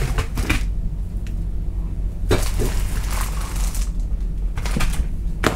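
Blister-packed products, plastic bags and a cardboard box being handled and set down on a tabletop: scattered short rustles and light knocks with quiet gaps between them, over a steady low hum.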